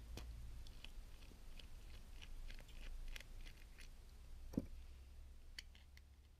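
Light plastic clicks and taps from handling a plastic Transformers toy while fitting batteries into it, with one duller knock about four and a half seconds in, over a low steady hum.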